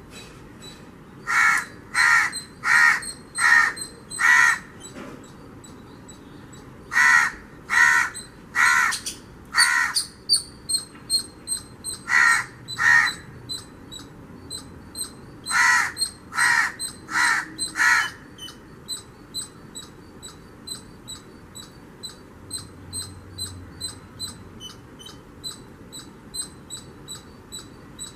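A crow cawing in runs of harsh, evenly spaced calls, about one and a half a second: five, then four, then two, then four, each run separated by a few seconds of pause. The last ten seconds hold no calls.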